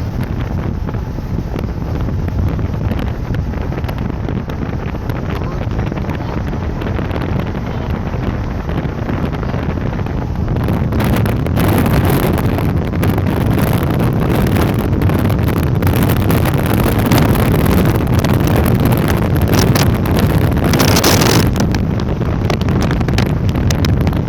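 Wind buffeting the microphone, gusting harder from about halfway through.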